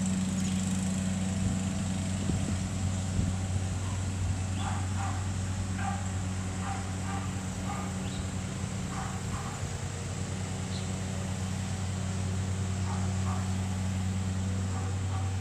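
Golf cart engine running at a steady, even pitch as the cart drives along. From about four seconds in there are faint short calls over it.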